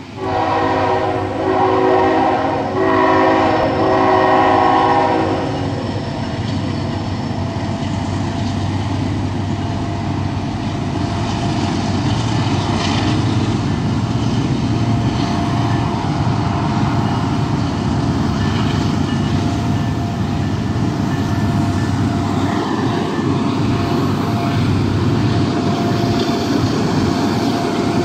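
Norfolk Southern diesel locomotive horn sounding several blasts over the first five seconds. After that comes the steady rumble of the empty coal train rolling along the rails, with a thin steady tone above it.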